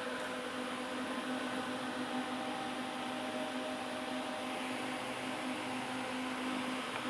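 Three small 12 V DC fans, 4.8 W each and wired in series, running steadily: an even whir of moving air with a constant low hum.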